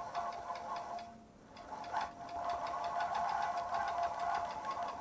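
Longarm quilting machine stitching: rapid, even needle strokes over a steady motor whir. The stitching eases off briefly about a second in, then runs on steadily.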